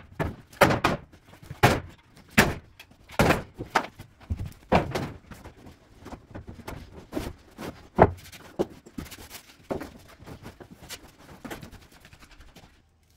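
Irregular series of heavy thuds and knocks of wooden furniture being broken up and thrown out, more than a dozen blows about half a second to a second apart, thinning out near the end.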